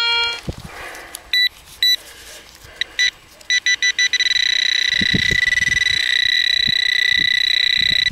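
Handheld metal detecting pinpointer beeping, a few separate beeps that come quicker and quicker and then hold as one steady high tone: the probe is right on a metal target buried in the lifted sod.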